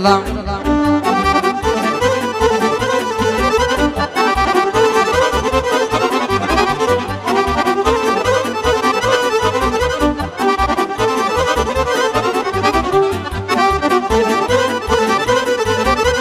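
Instrumental break of Romanian party music: a Roland digital accordion plays a fast, busy melody over keyboard accompaniment with a steady bass beat.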